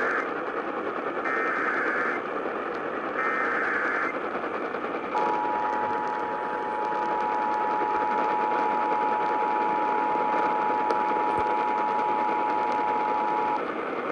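Emergency Alert System header and attention signal heard over a radio broadcast with a layer of static hiss. Short bursts of shrill digital data, the SAME header, come about two seconds apart. Then about five seconds in, the steady two-tone EAS attention signal sounds for about eight seconds and stops.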